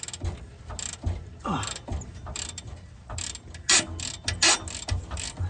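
Hand ratchet clicking in short irregular runs as it spins out bolts that have already been cracked loose.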